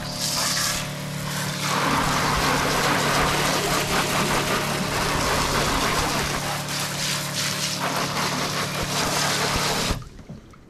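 Boat's deck-wash pump running with a steady hum while water sprays hard from a coiled-hose trigger nozzle onto the deck and a plastic tub. Pump and spray stop suddenly near the end.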